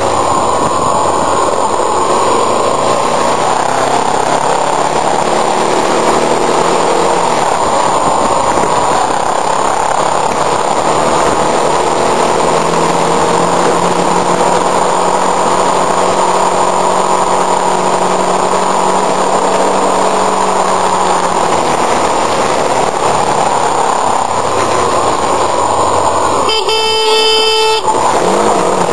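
Motorcycle engine running under way with heavy wind rush, its revs rising and falling. A vehicle horn sounds once for about a second near the end.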